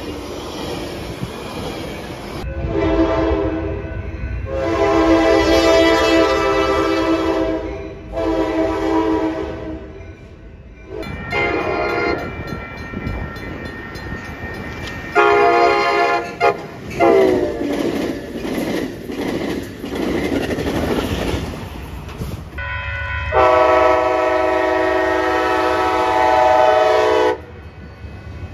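Train horn sounding a series of blasts, some long and some short, the last held about four seconds, over the low rumble of a passing train.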